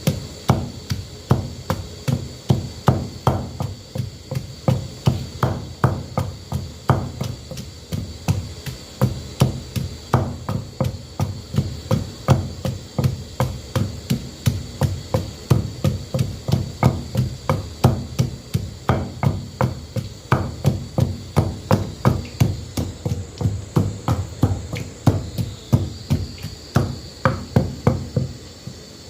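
Steady run of dull knocks, about three a second, of a cook chopping or pounding ingredients, with a faint steady high-pitched hum behind.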